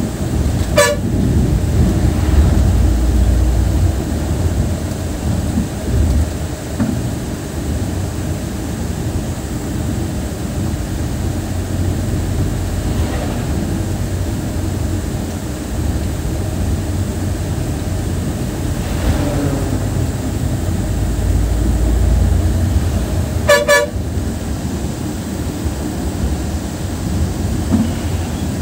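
Moving coach bus running with steady low engine and road noise, and two short horn honks, one about a second in and one about five seconds before the end.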